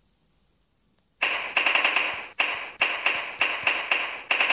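Submachine-gun fire sound effect played by a gun-sounds phone app: a string of short bursts of rapid automatic fire, starting about a second in.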